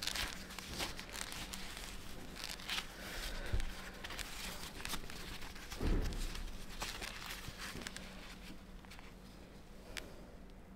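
Handling noise of hands working a strap wrapped over duct tape around a motorcycle oil filter to break it loose: rustling and crinkling with scattered sharp clicks, and a dull thump about six seconds in.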